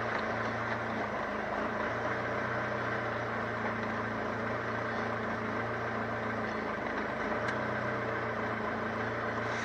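Ford Transit camper van's engine running steadily at low revs, with no revving.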